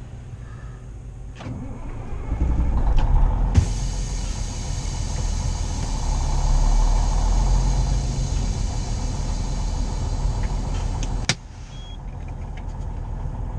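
Semi-truck's diesel engine, heard from inside the cab, working harder about two seconds in as the truck pulls slowly forward. A steady hiss starts suddenly at about three and a half seconds. Both drop away at a sharp click about eleven seconds in.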